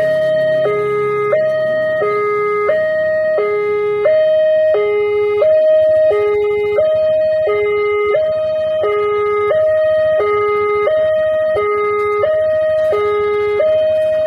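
Railway level-crossing warning siren sounding a steady two-tone alarm, a low tone and a higher tone taking turns about every two-thirds of a second: the signal that a train is approaching the crossing.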